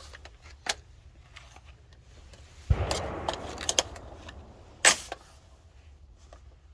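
Two rifle shots from a 20-inch 5.56 AR-15 firing 55 grain hollow point rounds. The first comes about three seconds in with a rolling echo after it, and the second is a short, sharp crack about two seconds later, with a few light clicks before the first.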